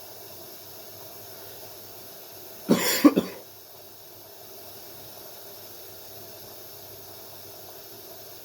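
A person coughs once, a short harsh burst about three seconds in, over a steady low hum and hiss.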